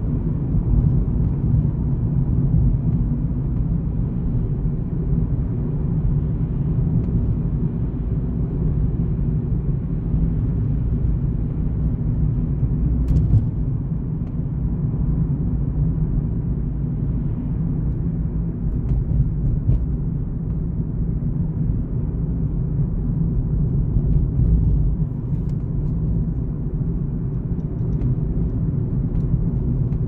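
Car driving along a road: a steady low rumble of engine and tyre noise.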